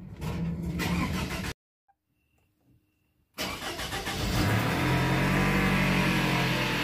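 Toyota Camry's 2.4-litre 2AZ four-cylinder petrol engine starting and then running steadily, with a break of about two seconds in the middle of the sound.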